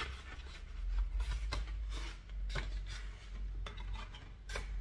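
Handling noise from album contents: stiff paper postcards rustling and sliding, with several small clicks and taps as the cards and the CD are picked up and moved.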